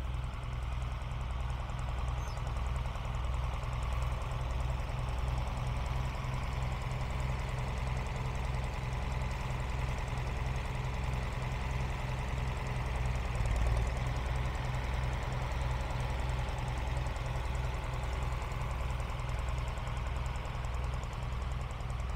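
1955 Allis-Chalmers WD45 tractor engine running at a steady low throttle as the tractor drives, with an even low pulsing exhaust beat. It grows briefly louder a little past halfway through.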